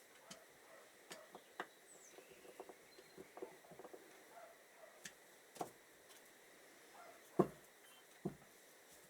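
Light, scattered clicks and taps of small metal carburettor parts and tools being handled, with two louder knocks about seven and eight seconds in.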